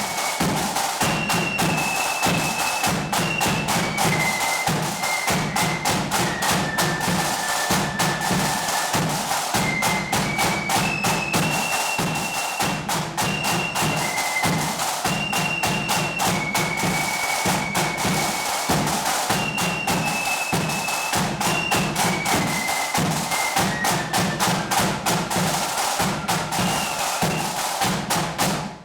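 Flute band playing a march: a high flute melody moving in steps over rapid snare-drum strokes and a steady bass drum, stopping abruptly at the end.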